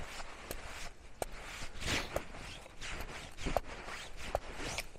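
Terava Jääkäripuukko knife blade being stroked on the leather hone, treated with honing compound, on the back of its sheath: a few short scraping strokes among light clicks and handling noise.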